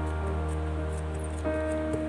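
Instrumental background music with sustained notes over a held bass note.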